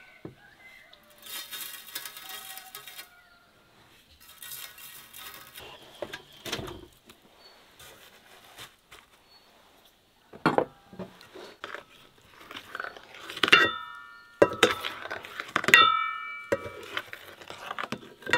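Salt poured and scattered onto an enamel plate, a grainy hiss that comes twice. Then knocks and clatter on the plate as a knife cuts fresh cheese on it, with two loud clinks of metal on enamel that ring on briefly.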